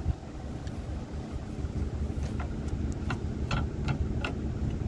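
Isuzu FRR110 truck's diesel engine running steadily at idle. Several light, sharp clicks or knocks come in the second half.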